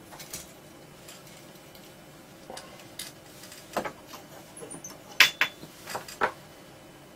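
Small clicks and clinks of tools, wire and a circuit board being handled while soldering: scattered sharp taps, the loudest pair about five seconds in.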